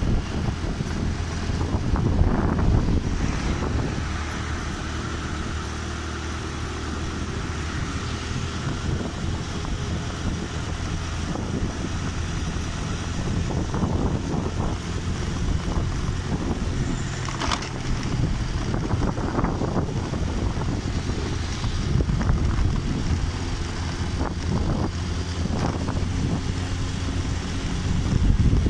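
Motorcycle engine running steadily while riding along, with wind rumble on the microphone. A single sharp click about two-thirds of the way through.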